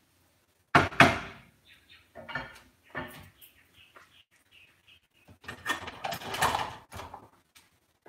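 Kitchen cookware and utensils being handled: two sharp knocks about a second in, then scattered taps and a longer stretch of clattering and scraping near the end.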